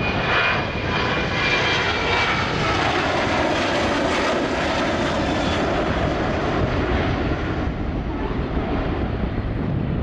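Boeing 737-800 jet airliner's CFM56-7B turbofan engines at takeoff power as it rolls past, lifts off and climbs away: a loud, steady jet roar with a high fan whine at first. The whine falls in pitch as it passes, and the sound grows duller near the end.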